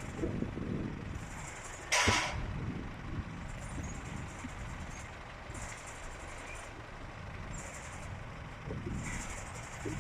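Farm machinery running steadily during bale loading onto a truck, with one short, loud hiss about two seconds in, like an air brake release. A faint high-pitched rasp comes and goes every second or two.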